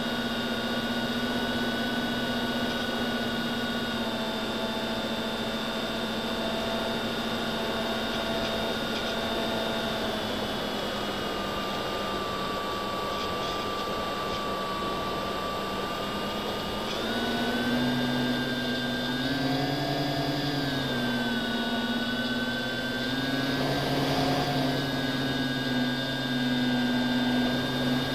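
FPV quadcopter's brushless motors and propellers whining steadily, heard from on board. About two-thirds through the pitch steps up with the throttle, then rises and falls twice.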